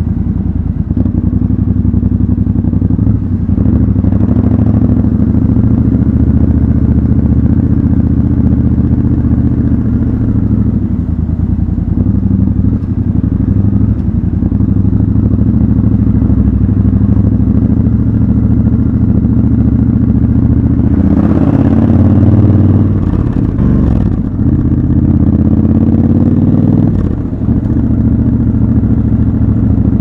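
Triumph Scrambler 1200 XC's 1200 cc parallel-twin engine running under the rider at low speed, with revs rising twice in the latter half as the bike accelerates.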